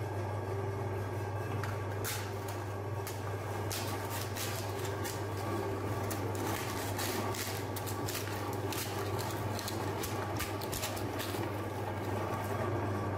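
Electric meat grinder's motor running with a steady low hum, while plastic cups and wafer ice-cream cones are crushed in the auger with many sharp cracks and crunches. The cracking starts about two seconds in and stops near the end, once the hopper is empty.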